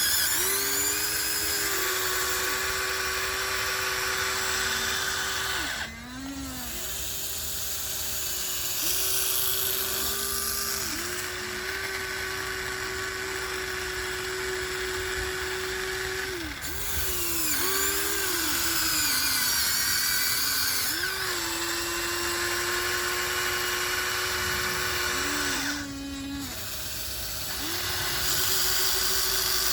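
Huina 1494 radio-controlled model excavator's electric motors and gearing whining as it digs. The pitch sweeps up each time a movement starts and falls away as it stops, with brief pauses about six seconds in and near the end.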